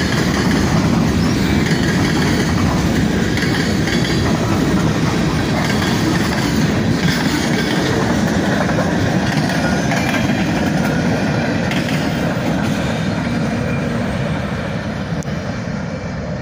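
Norfolk Southern mixed freight cars rolling past at speed, steel wheels clacking over the rail joints. The noise eases off near the end as the train moves away.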